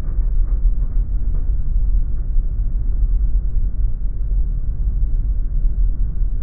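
Steady low rumble of an aircraft rolling along the runway on its twin-wheel nose landing gear.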